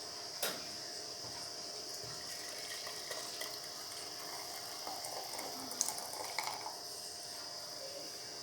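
A few light clicks and clinks of kitchen utensils over a steady faint hiss, the sharpest click about six seconds in.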